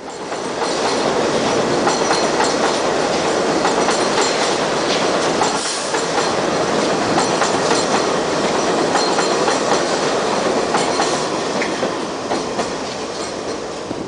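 New York City subway train running over an elevated steel track structure: loud, steady running noise with rapid clicks from the wheels on the rails. It eases off near the end.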